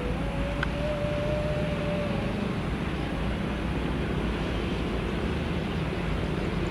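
Jet engines of a Citilink Airbus A320-family airliner rolling on the ground, a steady rumbling roar with a thin whine over it, and a whine beginning to rise in pitch near the end.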